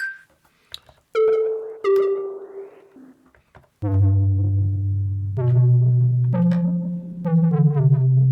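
Notes played on a keyboard through a sampler instrument made from a single recorded water drop: two short, separate notes that die away, then from about four seconds in low held notes, several at once, moving to new pitches about once a second.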